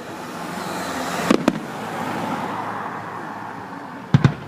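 Fireworks going off: a hiss and crackle that swells and then fades, with two sharp bangs about a second in and two more near the end.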